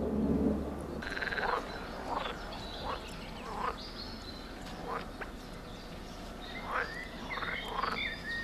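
A series of short animal calls, one or two a second, most of them sweeping down in pitch, over a steady outdoor background. There is a louder, low-pitched sound during the first second.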